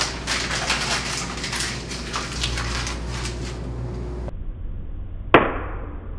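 A sheet of paper being crumpled into a ball: a dense crackling crinkle for about four seconds. Then, about five seconds in, a single sharp knock.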